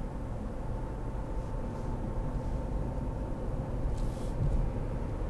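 Car driving, heard from inside the cabin: a steady low rumble of engine and road noise, with a faint steady drone above it and a brief hiss about four seconds in.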